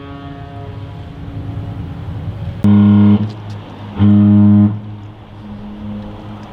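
Ship's horn on a passenger ferry giving two short, deep blasts about a second and a half apart, with the tail of an earlier long blast fading out at the start and a faint lingering echo after.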